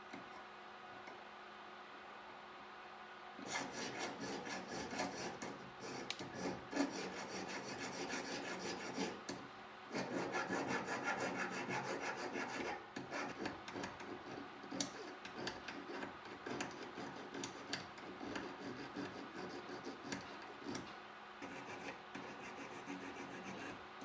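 A small solid-silver piece being hand-worked with an abrasive, rapid rasping strokes. They begin a few seconds in and run on with a brief pause about ten seconds in.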